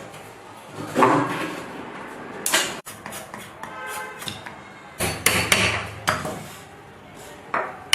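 Hammer blows on wood: a few separate strikes, then a quick run of them about five seconds in.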